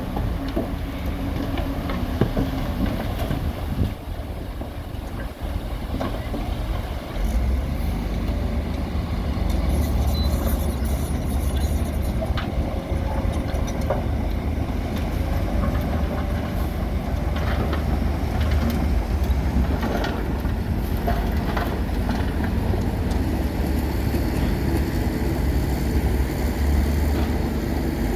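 Heavy diesel earthmoving machinery running: a steady low engine drone that grows louder about seven seconds in, with a few scattered knocks.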